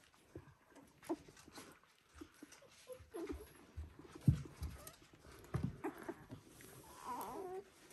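One-week-old Border Collie puppies stirring, with scattered small clicks and soft bumps, the loudest about four seconds in. Near the end comes a short, wavering puppy whimper.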